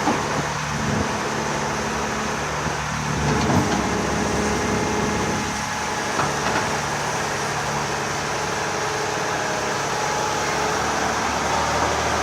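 Excavator's diesel engine running steadily under work, with a few faint knocks.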